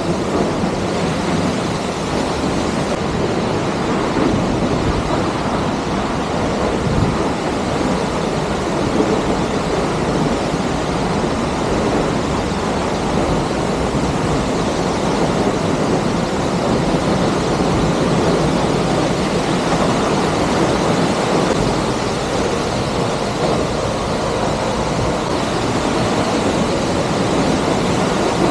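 Hunua Falls in full flow: a loud, steady rush of falling water with no breaks or distinct events.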